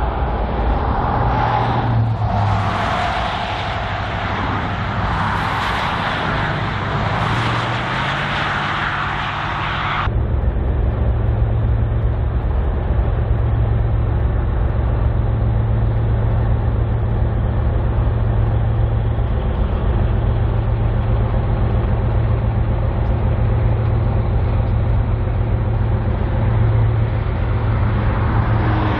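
Diesel freight locomotives on an oil train running with a steady low engine rumble. For the first ten seconds a wide hiss and a high steady squeal sit over it; these cut off abruptly.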